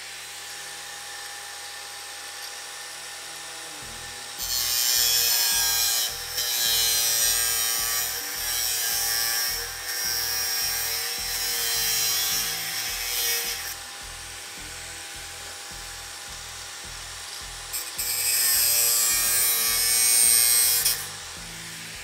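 Angle grinder with a cut-off wheel running at speed and cutting a sheet-metal patch panel. Its steady whine is broken by two long spells of louder, harsh cutting, the first with short breaks between passes. The wheel starts to wind down at the very end.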